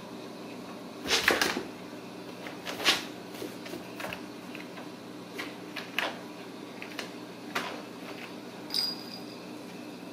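Ragdoll kittens playing on a corrugated cardboard scratcher: scattered knocks, scrapes and scratches of paws and claws on the cardboard, the loudest a cluster about a second in and another about three seconds in, over a steady low hum.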